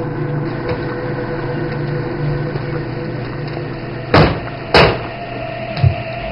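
A steady low mechanical hum. Two loud sharp knocks about half a second apart come a little past four seconds in, and a softer knock follows near six seconds.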